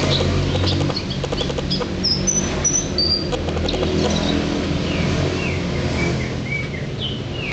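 Caged Javan bush lark (branjangan) singing: rapid short chirps and clicks, then high whistled notes, then lower slurred notes, over a steady low hum.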